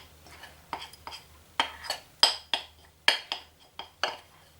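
A spoon clinking and scraping against a bowl, a dozen or so irregular sharp clinks, as melted Mars bar chocolate mixture is spooned out onto rice bubbles.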